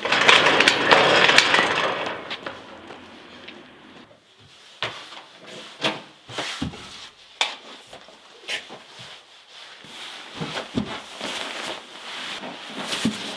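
Keys, a door and clothing being handled: a loud rustling rush for the first two seconds, then scattered clicks, knocks and rustles of someone fumbling in the dark.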